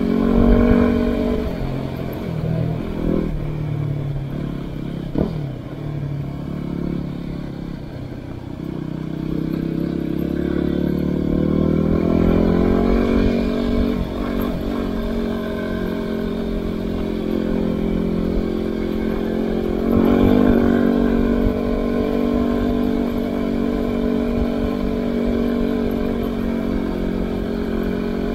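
Yamaha WR250R's 250 cc single-cylinder four-stroke engine running as the bike is ridden. Its pitch shifts up and down in the first few seconds, climbs smoothly between about nine and twelve seconds in, then holds fairly steady.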